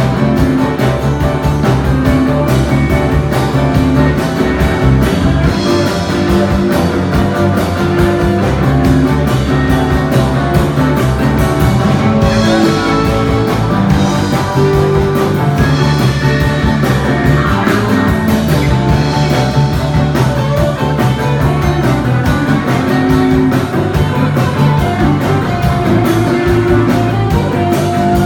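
Rock band playing an instrumental passage of a blues-rock song: guitar over drums with a steady beat, no singing.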